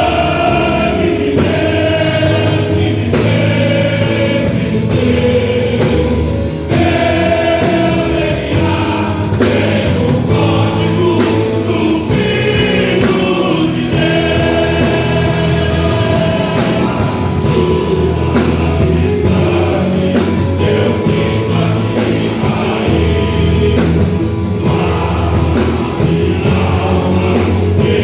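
A choir singing a gospel song in Portuguese over instrumental accompaniment.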